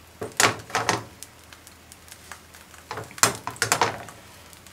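Wooden cooking chopsticks clicking and scraping against a nonstick frying pan as they work a thin sheet of half-set egg, in two quick clusters of knocks, one near the start and one a little after the middle.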